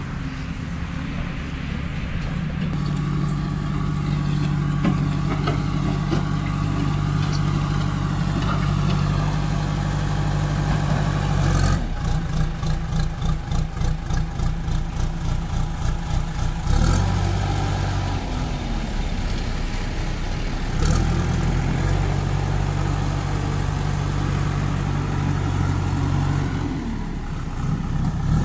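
JCB 2DX backhoe loader's Kirloskar diesel engine running, its note rising and falling with load. For about four seconds in the middle it pulses rapidly, about four times a second, then it settles back to a steady run and drops near the end.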